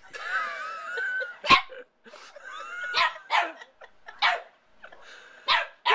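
Small white terrier barking sharply several times, with a whining, wavering cry in the first second.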